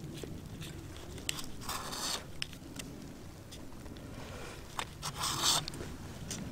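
Plastic food wrapping crinkling and rustling as a gloved hand handles it, with scattered small clicks and two louder crinkles, about two seconds in and again about five seconds in.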